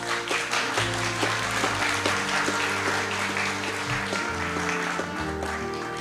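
Audience applause over background music with held, steady notes; the clapping thins out near the end.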